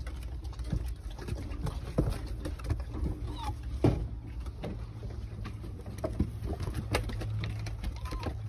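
Puppies' paws pattering and scrabbling on wooden deck boards as they play, with irregular light clicks and knocks.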